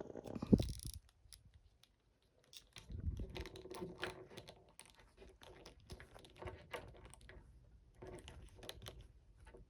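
A plastic Mafex Thor action figure and its accessories being handled: one thump about half a second in, then a quiet moment, then a long run of small irregular clicks and taps as the figure's parts are moved.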